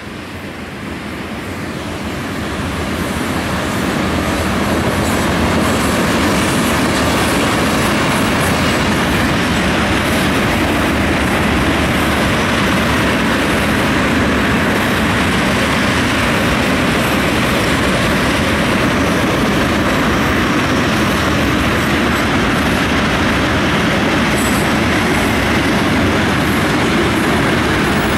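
Freight train of tank cars rolling past, a steady noise of steel wheels on rail that builds over the first few seconds and then holds.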